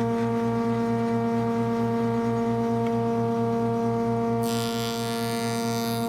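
A stationary woodworking machine's electric motor running with a steady hum. A short hiss of a cut sounds about four and a half seconds in, lasting about a second and a half.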